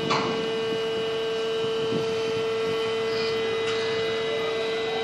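Steady electric hum of a container crane's machinery while the spreader is in motion: one strong even tone with fainter higher tones above it. A light knock comes just after the start, and a couple of faint clicks follow.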